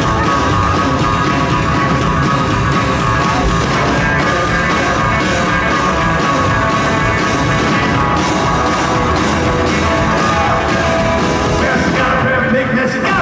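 Live rockabilly band playing, with an electric guitar out front over drums. The bright top end thins out near the end.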